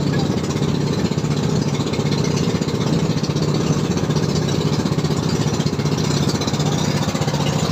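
Outrigger boat's engine running steadily under way, a constant hum with a fast even pulse over a hiss.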